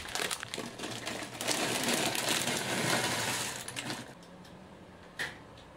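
Veggie burgers sizzling in a frying pan, with a few clicks near the start; the sizzle dies down about four seconds in.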